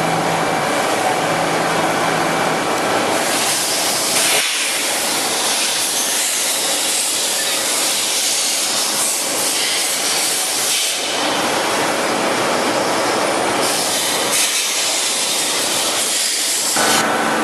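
Collet & Engelhard BFfb 130 NU table-type boring and milling machine running: a steady, high-pitched mechanical noise that grows louder about three seconds in, eases for a couple of seconds past the middle, then rises again before shifting near the end.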